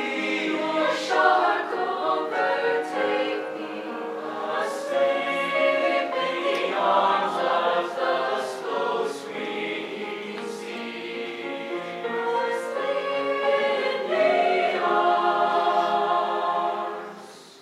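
Mixed high-school choir singing together in parts, the sound dying away near the end.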